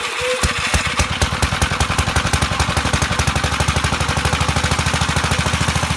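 A small engine starts and runs with a rapid, even firing beat, then dies away near the end.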